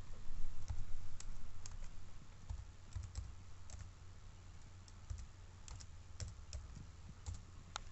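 Keys typed on a computer keyboard as a password is entered: irregular single clicks, busier in the first few seconds, with one firmer click near the end, over a steady low hum.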